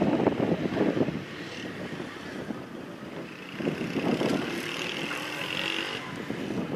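Helicopter flying overhead: a rough rotor-and-engine drone that swells loudest near the start and again about four seconds in.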